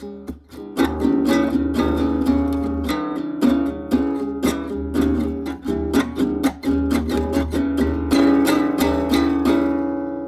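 Acoustic guitar strummed unskillfully, a quick uneven series of strums and plucks with the strings ringing between them, the sound of a beginner playing badly.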